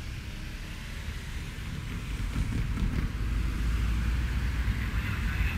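Low, uneven rumble that grows louder about two seconds in, over a faint hiss.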